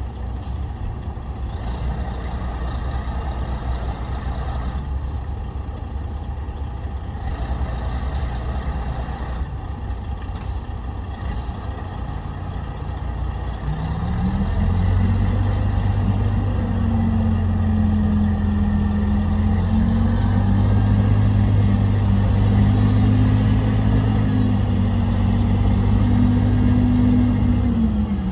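Heavy diesel engine of earthmoving equipment running with a low rumble, then revving up about halfway through and holding a strong, steady note before dropping off near the end.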